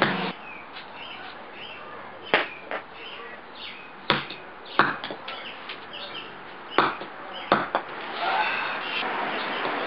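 Claw hammer striking a golf ball on brick paving: about six sharp knocks at irregular intervals. Birds chirp in the background between the blows.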